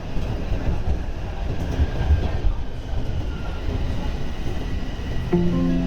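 Toronto TTC subway train heard from inside the car as it pulls into a station: a steady low rumble of wheels on track, with faint high squeal tones.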